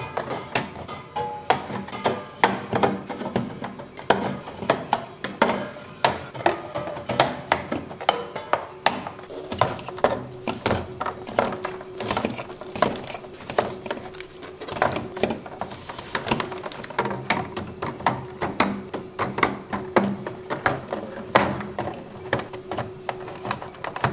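Aluminium drink cans and plastic bottles clinking and knocking as they are set one by one into a refrigerator's plastic door shelf: many sharp taps and clacks, a few a second, over background music.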